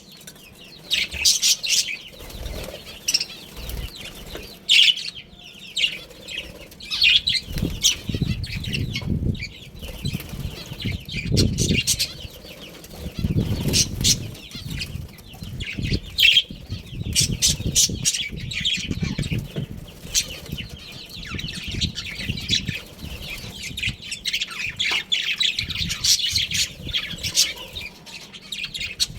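A group of budgerigars chattering with rapid, high-pitched chirps throughout, mixed with bursts of wing flapping.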